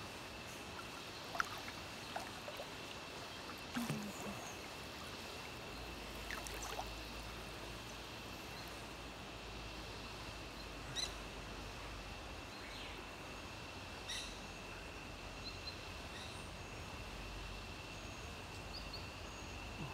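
Faint outdoor ambience with a steady high-pitched whine and a few short bird chirps; a low rumble comes in about six seconds in.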